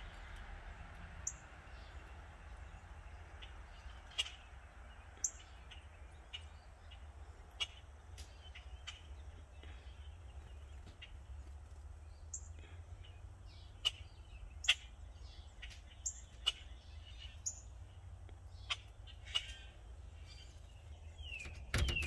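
Backyard songbirds, among them a northern cardinal, giving scattered short, sharp chirps every second or two, some of them quick high falling notes. A low steady rumble lies underneath.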